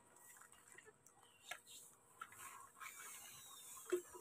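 Near silence, broken by a few faint, scattered clicks and knocks.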